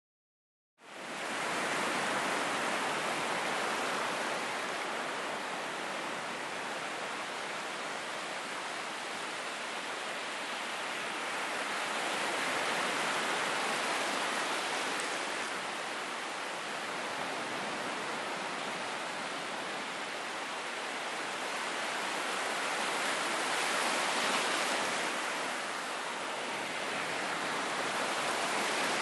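Ocean surf recorded up close: a steady rush of breaking and washing waves that swells and eases slowly every ten seconds or so. It starts abruptly about a second in.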